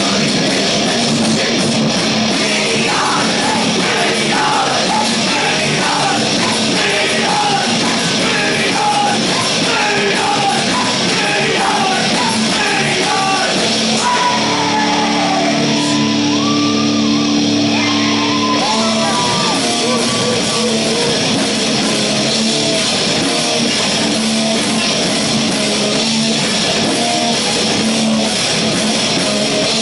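Live heavy metal band playing in a hall: distorted electric guitars, drums and vocals at a steady high level. About halfway through, the cymbals drop out for a few seconds while a held chord rings.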